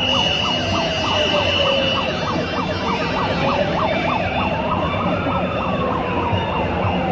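Two sirens sounding together: one yelping in quick rising sweeps, about four a second, while another wails slowly up and down. A steady high tone sits over them for the first three seconds, with crowd noise underneath.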